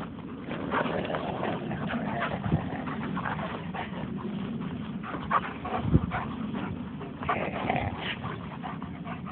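Young German Shepherd playing excitedly right at the microphone: close dog noises with short whines, over a steady rustle and many small knocks. The loudest sound is a sharp thump about six seconds in, with a smaller one earlier.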